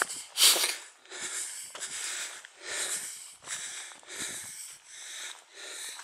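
A person breathing hard close to the microphone, quick noisy breaths in and out, about eight in a row.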